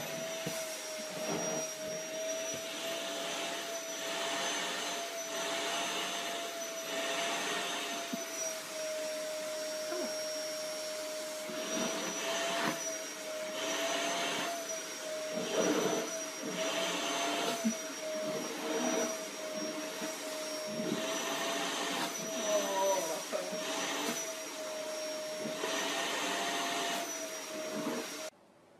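Vacuum cleaner running, its wand worked against a cat's coat. There is a steady motor whine, and the rushing air swells and eases every second or two. It cuts off abruptly near the end.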